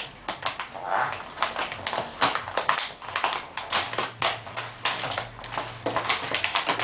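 A mail package being handled and opened by hand: irregular clicks, taps and rustles of packaging, several a second.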